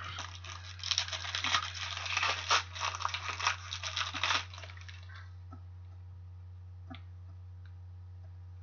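Plastic crinkling and rustling as trading cards are handled in a clear plastic wrapper or sleeve, stopping after about four and a half seconds; a few faint clicks follow over a low steady hum.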